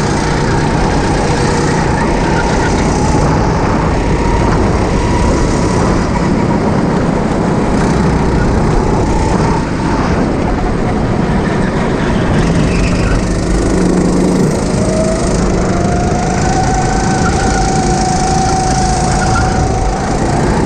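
Go-kart's small engine running loud and continuously under a dense rushing noise, its pitch shifting and rising again about three-quarters of the way through.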